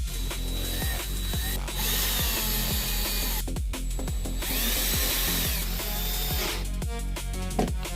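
A power screwdriver or drill runs in short spells, driving screws as a flat-screen TV is reassembled. Drum and bass music plays under it, with a steady bass line and drum beat.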